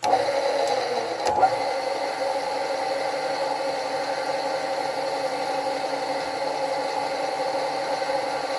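A machine tool's spindle motor switched on and then running steadily, turning a spot drill in a drill chuck. There is a short sharp knock about a second and a half in.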